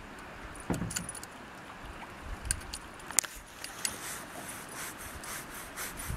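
Small metallic clicks and jingling of pliers working hooks free of a fish tangled in a landing net, with one dull knock near the start.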